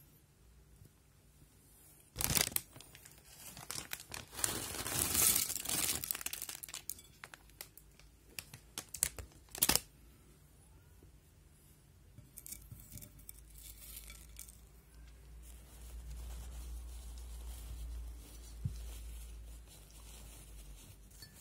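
Plastic crisp packet being handled and torn open: loud crinkling and tearing in several bursts during the first half, then quieter rustling.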